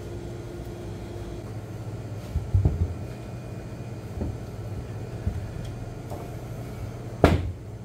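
Steady low machine hum, with a few knocks and thumps as beef rib pieces are handled and set down on the cutting board; the loudest is a sharp knock about seven seconds in.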